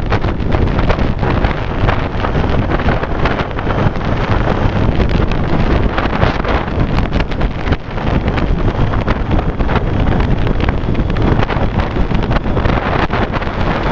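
Loud, steady wind rushing over the microphone of a Triumph Street Triple motorcycle riding at road speed, with the bike's engine and road noise buried underneath.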